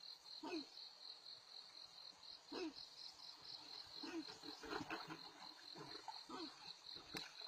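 Steady high-pitched insect trill, pulsing a few times a second, with faint scattered short sounds beneath it.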